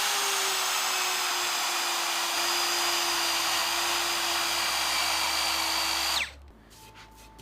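Electric komi-sen kakunomi (hollow-chisel mortiser for 15 mm square peg holes) running at a steady whine while boring into the timber beam. It stops abruptly about six seconds in, leaving a few light knocks.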